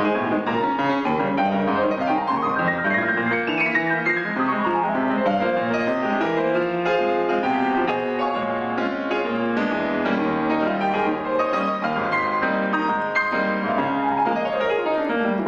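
Yamaha grand piano played solo, dense chords and melody with fast runs across the keyboard: a quick run up about two seconds in, one back down just after, and another run down near the end.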